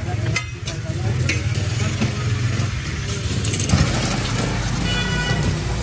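Eggs sizzling on a large flat steel griddle, with a metal spatula scraping and tapping against the plate. A steady low hum runs underneath, and a short high-pitched tone sounds about five seconds in.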